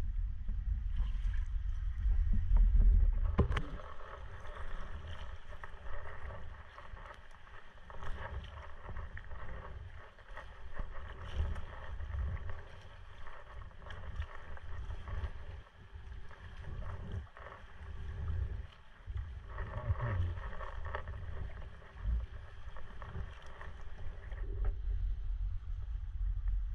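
Sea kayak being paddled: paddle blades dipping and splashing, with water dripping and trickling around the hull. Wind rumbles on the microphone, heaviest in the first few seconds and again near the end.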